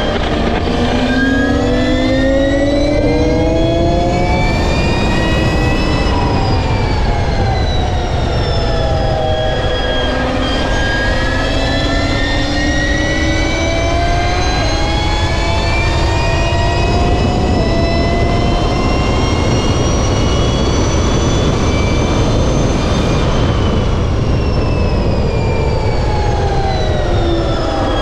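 Energica Ego electric motorcycle at speed: its electric motor and drivetrain whine climbs in pitch twice as the bike accelerates and drops each time it slows, over loud wind rush on the bike-mounted microphone.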